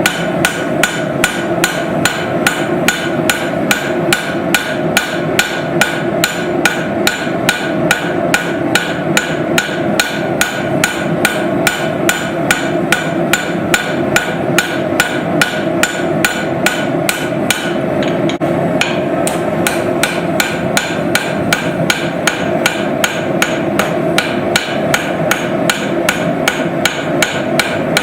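Forging hammer blows on hot steel, a regular beat of about three strikes a second, over a steady background hum.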